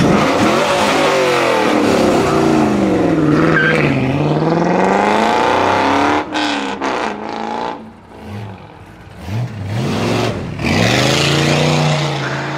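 A C5 Corvette's V8 revs hard and pulls away, its pitch sinking and then climbing again. It is followed by a classic C2 Corvette Sting Ray's V8 giving several short throttle blips and then holding a steady note as it drives past.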